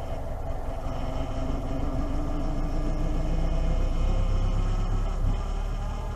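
Vehicle engine running steadily just after a cold start in deep frost, a low rumble that grows a little louder through the middle.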